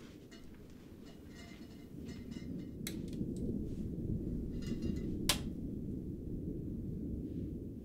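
A low, steady rumble that grows about two seconds in, under faint rustling and two sharp clicks; the louder click comes about five seconds in as a kerosene lamp with a glass chimney is carried and handled.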